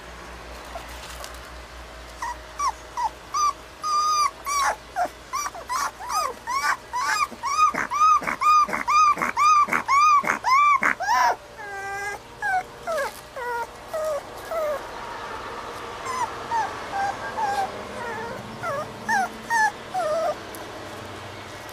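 A young puppy whimpering: a long run of short, high-pitched cries, each rising and falling in pitch, that quicken to about two or three a second and grow loudest in the middle, then give way to slower cries that slide downward.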